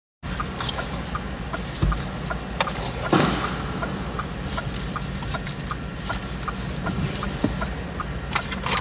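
Parked car's engine idling, with a string of short, light ticks and a few louder knocks over it.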